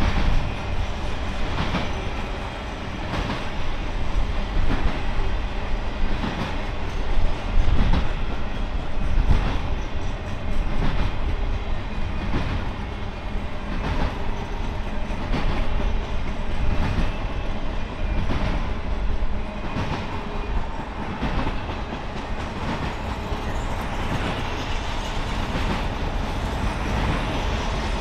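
Triple Crown RoadRailer trailer cars rolling past on their rail bogies. Their wheels clack over rail joints in a steady rhythm about once a second over a continuous rumble.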